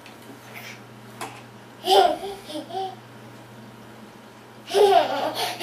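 Baby babbling: a few short high-pitched sounds about two seconds in, then a louder run of babbling near the end.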